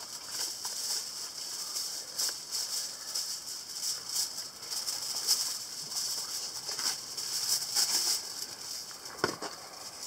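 Aluminium kitchen foil crinkling and crackling as a sheet is torn from its box and handled, in many short irregular crackles.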